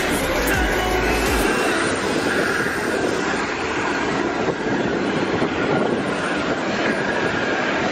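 Steady aircraft engine roar; a deeper low rumble underneath drops away about a second and a half in.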